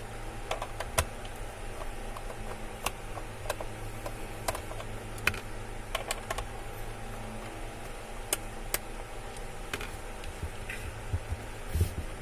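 Plastic doorbell casing being opened by hand: irregular small clicks and taps of plastic parts and a screwdriver, over a steady low hum.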